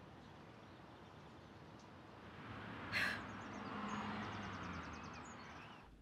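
Quiet outdoor suburban ambience with faint high bird or insect chirps in quick runs and a short click about three seconds in. It cuts off suddenly near the end.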